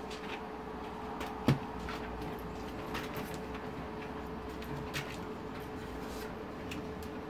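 Plastic instrument cluster knocking once on a desk as it is turned over and set down, about a second and a half in, then a few small clicks of a metal pick against the circuit board and pointer-motor lugs. A faint steady hum runs underneath.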